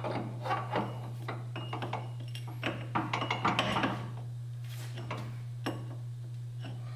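Front CV axle shaft being worked back into the wheel hub by hand: light metal clinks, knocks and rubbing, busiest about three seconds in, over a steady low hum.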